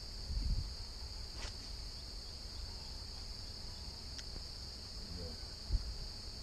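Steady high-pitched insect chorus droning without a break, with a couple of faint clicks and a short low thump near the end.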